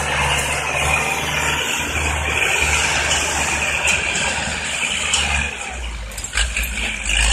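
Farm tractor's diesel engine running steadily as it pushes and levels soil with its front dozer blade, falling off briefly about six seconds in and rising again at the very end.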